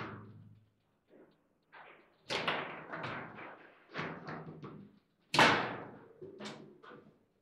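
Table football (foosball) play: a string of hard knocks and clacks as the ball is struck by the plastic players and the rods knock in the table, the loudest about five and a half seconds in.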